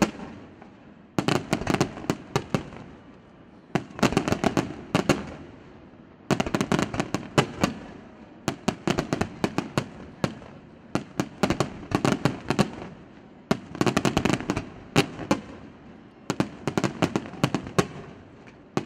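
Aerial firework shells bursting in volleys: a cluster of sharp bangs every two to three seconds, each cluster a quick run of several cracks.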